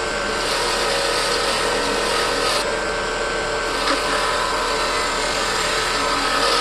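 Power tool running steadily on metal, a continuous motor whine over rough rasping noise.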